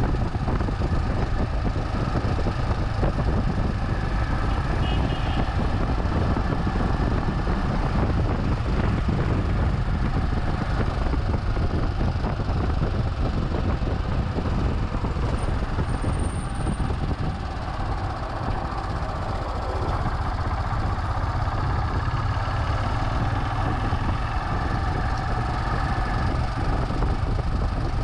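Royal Enfield Himalayan's single-cylinder engine running while the motorcycle is ridden, mixed with wind rush on a camera microphone. The sound is steady and dips slightly for a moment past the middle.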